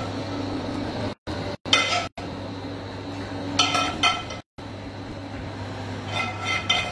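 A spoon clinking against a frying pan and ceramic plates as food is served out: sharp clinks with a brief ring about two seconds in, a pair in the middle and a pair near the end, over a steady low hum. The sound cuts out completely for a moment several times.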